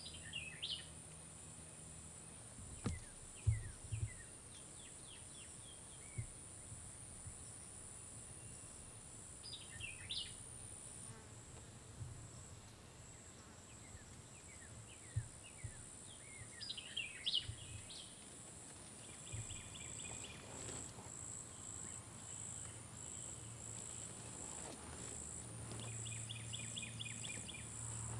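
Insects trilling in a steady high-pitched drone, which pulses about twice a second in the latter part, with short bird chirps now and then and a few dull knocks about three to four seconds in.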